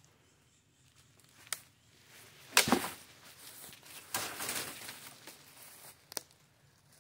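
A sword blade hacking at a leafy tree branch: a loud strike with leaves rustling about two and a half seconds in, a longer rustle of foliage about four seconds in, and a few lighter sharp cracks of twigs.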